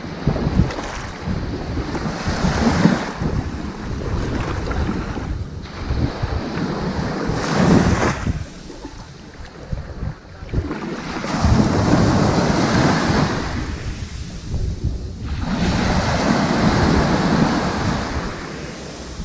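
Ocean waves washing onto a sandy beach, the surf swelling and ebbing in surges every four to five seconds.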